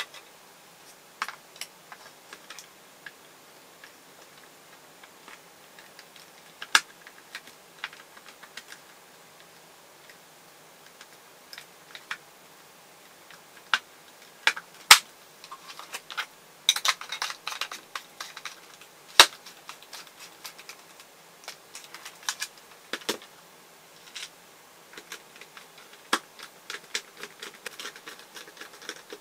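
Scattered sharp clicks and light knocks of a cordless screwdriver's plastic housing being handled, its two halves fitted and pressed together and then screwed shut with a small hand screwdriver.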